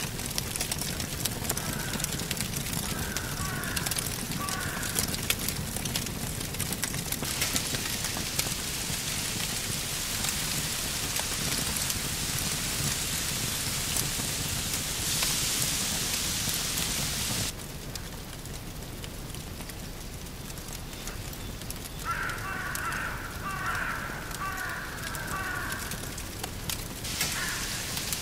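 Wood campfire crackling and hissing, with many sharp pops. About 17 seconds in the sound cuts abruptly to a quieter, softer crackle.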